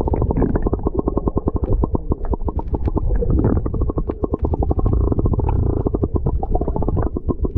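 Muffled underwater sound from a camera held beneath the sea surface: a low rumble with rapid, even ticking at about ten a second.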